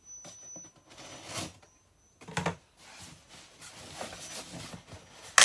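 Scissors cutting the packing tape on a cardboard box: a few short scratchy rasps, with a sharper, louder one near the end.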